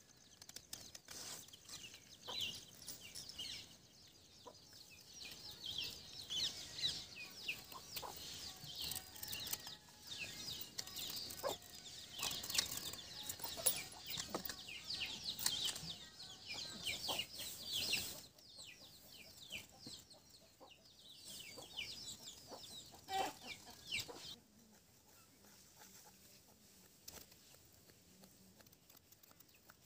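Chickens calling, a rapid stream of short, high chirps that comes and goes, thins out and mostly stops about 24 seconds in.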